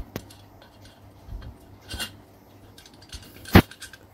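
Scattered metal clicks and clinks as a homemade tie-rod tool, a steel pipe with welded bolts, is handled. The loudest knock comes about three and a half seconds in.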